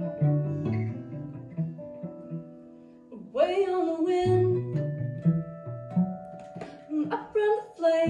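A live acoustic string band: strummed acoustic guitar and plucked upright bass keep a steady beat. A voice comes in singing with an upward slide about three seconds in, and sings again near the end.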